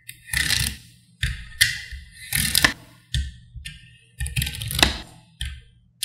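Small magnetic balls clicking and clattering as they are pushed together and snap into place on a card, in a string of short, irregular bursts.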